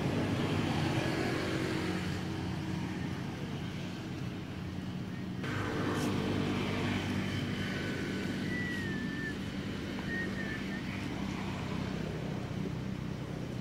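An engine running steadily with a low hum, with a couple of short high chirps past the middle.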